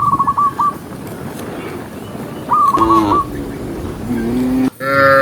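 A bird calling in quick runs of short chirps, twice, over rustling background noise. Later come lower, drawn-out animal calls with several tones, the loudest just before the end.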